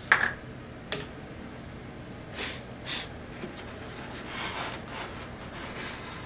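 Two sharp clicks in the first second as a bench power supply is switched on, followed by soft brushing and rubbing as a foam-board fuselage is slid across the table through a hot-wire foam cutter.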